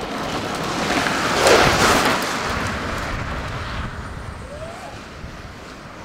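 Rushing wind and road noise from a moving vehicle, swelling to its loudest about a second and a half in and then fading away.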